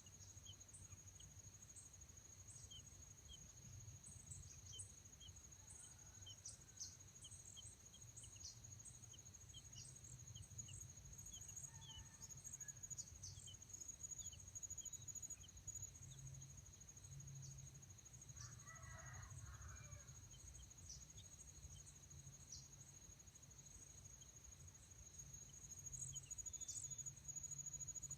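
Faint insect stridulation: a steady high-pitched drone with many short, high chirps scattered throughout, over a low rumble.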